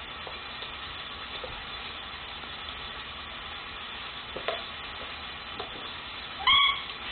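German shepherd giving one short, high-pitched yelp during rough play-fighting, near the end, over a steady hiss. A few faint soft squeaks come a little past the middle.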